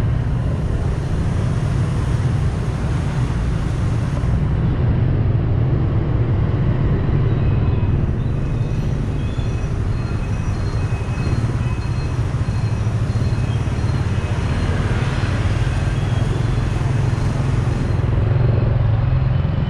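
Steady low rumble of riding through dense city scooter traffic: engine and road noise from the ride, mixed with the surrounding motorbikes and cars.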